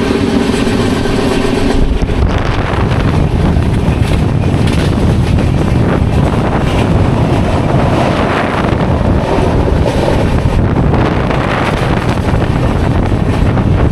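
Wind rushing over the microphone at the open door of a moving passenger train, over the train's steady running noise.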